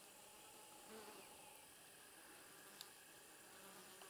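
Near silence: faint outdoor room tone, with one tiny click near the end.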